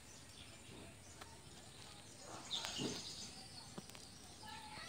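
Faint outdoor background with a few brief, distant bird chirps.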